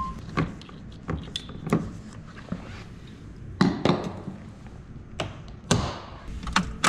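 A string of separate knocks, taps and clunks, the strongest about halfway through and again near the end, from a person climbing out of a Tesla Roadster and handling its charging cable to unplug it.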